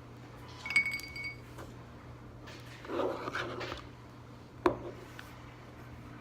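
A metal utensil clinks against a bowl with a brief ring about a second in, then a short scraping stir a couple of seconds later and a sharp tap just before five seconds, as borax solution is added to slime and mixed in.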